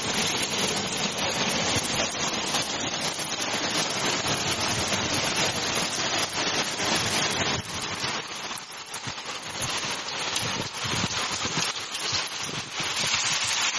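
Small hailstones falling with heavy rain: a steady, dense hiss packed with tiny ticks of stones striking hard surfaces, easing slightly about eight seconds in.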